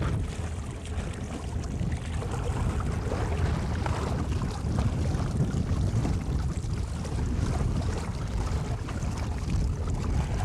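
Boat engine running as the boat moves ahead, with wind buffeting the microphone in a steady low rumble.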